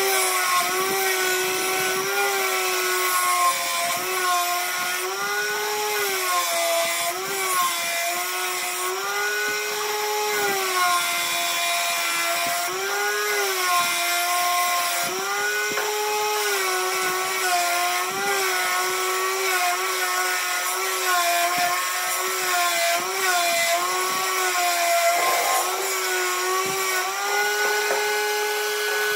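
Homemade spindle sander, a sanding drum driven by an angle grinder mounted under the bench, running with a steady whine and the rasp of sanding as a thick wooden beam is pushed against the drum. The whine sags in pitch and recovers over and over as the wood presses on the drum and loads the motor.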